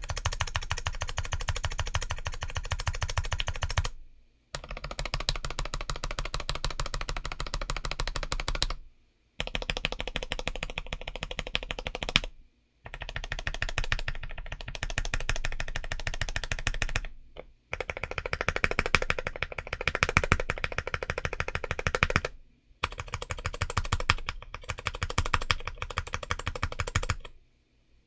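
Fast typing on a modded James Donkey A3 75% mechanical keyboard with Gateron Orange tactile switches and MT3-profile ABS keycaps: dense runs of keystrokes lasting about four to five seconds each, with short pauses between.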